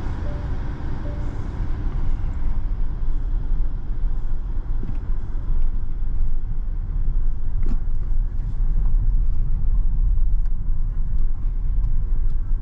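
Tyres rumbling over cobblestones, heard inside the cabin of a 2022 Peugeot e-2008 electric SUV, with scattered light knocks and rattles from about halfway through. Near the start come two short beeps as the climate touchscreen is pressed.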